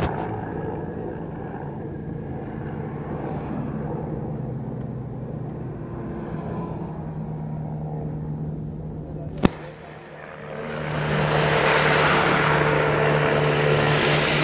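A car driving past close by, its engine and tyre noise swelling over the last few seconds. Before it there is a steady low hum, broken once by a sharp click about two-thirds of the way through.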